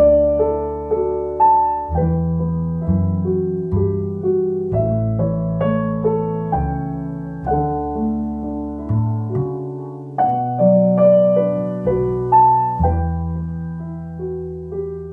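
Background piano music: a slow melody of struck, fading notes over lower bass notes.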